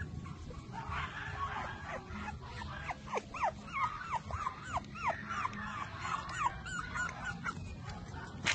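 A puppy whimpering and yipping: a run of short, high cries, many falling in pitch, several a second and most frequent in the middle.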